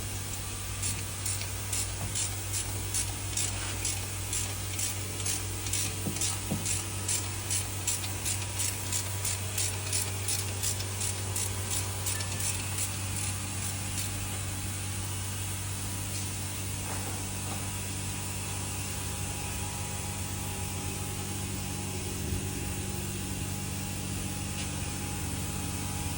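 Car repair shop sounds: a steady low hum, with short rhythmic rubbing or spraying strokes a little over twice a second for about the first half, which then stop.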